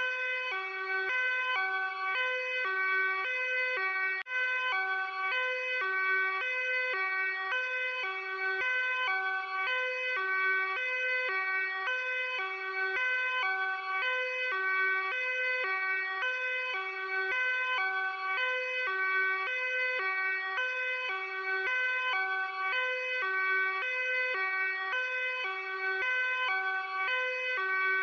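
Luxembourg police hi-lo siren sounding continuously, two tones alternating back and forth about twice a second.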